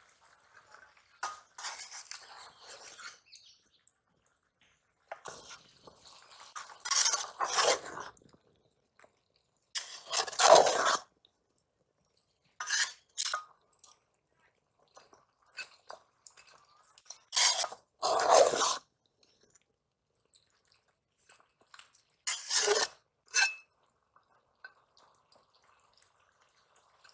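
Metal spatula stirring chunks of bottle gourd in a steel bowl, scraping and clinking against the metal as the wet pieces shift, in about six separate bouts.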